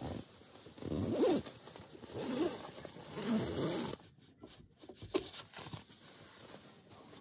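Nylon sleeping bag zipper being pulled open in three long strokes, followed by softer rustling of the bag's fabric and a few light clicks.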